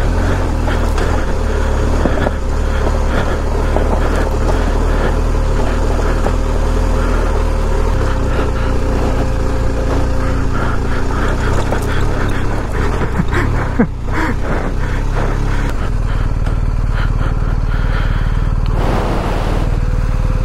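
BMW R 1250 GS's boxer-twin engine running steadily as the bike rides a rough dirt track, with frequent small knocks over the steady low rumble.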